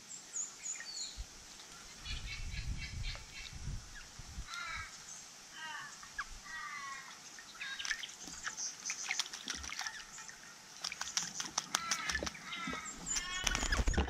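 Eastern rosellas bathing in a bird bath, splashing the water with quick flutters that come thick and fast through the second half. Other birds chirp and call throughout.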